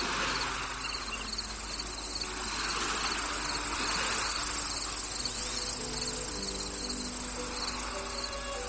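Crickets chirring steadily, with rapid repeated chirps, over soft background music of long held notes.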